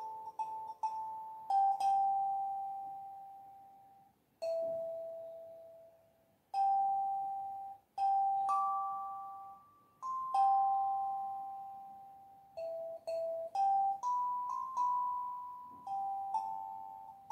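Kalimba with metal tines plucked by the thumbs, playing a slow melody of single notes that ring and fade out. Quick runs of short notes come near the start and again in the last few seconds.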